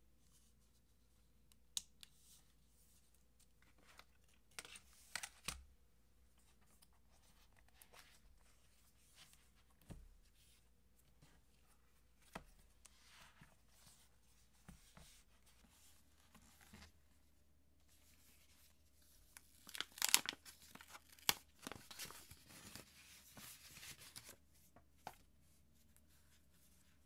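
Light taps and handling clicks scattered through the first half. Then, about twenty seconds in, a few seconds of packaging being torn open and crinkled, the loudest part.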